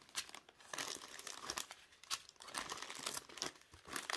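Clear plastic packaging crinkling and crackling in irregular bursts as hands sort through a bundle of small bagged diamond-painting drills.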